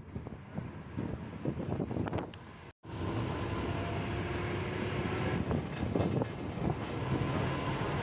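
Gusty wind noise on the microphone, then after an abrupt cut about three seconds in, the steady running noise of a moving vehicle: a low engine hum under wind and road noise.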